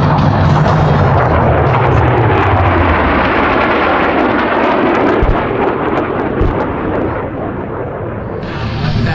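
Aircraft flying past at an air show: a loud, rushing engine roar with a slow sweeping whoosh through it, easing off about seven seconds in.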